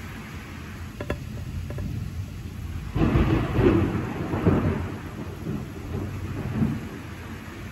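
Thunderstorm: steady rain with thunder. There are two faint cracks about a second in, then a loud clap about three seconds in that rolls on for several seconds and fades.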